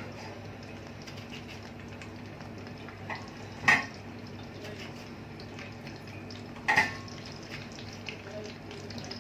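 A metal utensil knocking and scraping against a cooking pot, with two sharp clinks about a third and two thirds of the way through and small clicks between, over a steady low hum and faint hiss of cooking.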